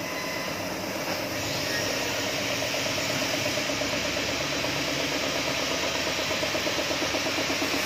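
Diesel engine of a flour-milling machine running steadily with a fast, even knocking beat, getting slowly louder.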